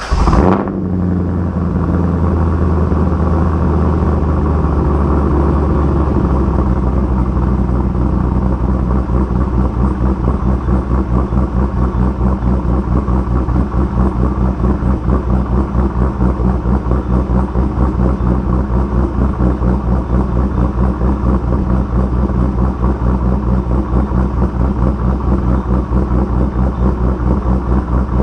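2002 Corvette Z06's LS6 5.7-litre V8, fitted with a big CMC-500 aftermarket camshaft and a B&B axle-back exhaust, catching on a cold start with a loud flare, then running at a steady fast idle. From about eight seconds in the idle turns choppy and loping, the lumpy rhythm of the big cam.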